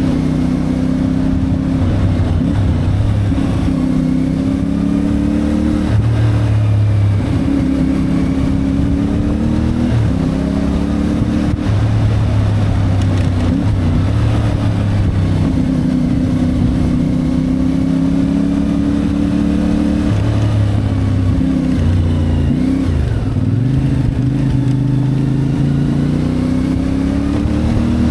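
CFMoto 450MT parallel-twin motorcycle engine running on the move, its revs rising and falling with the throttle every few seconds, with a sharp drop in revs a little past two-thirds of the way through.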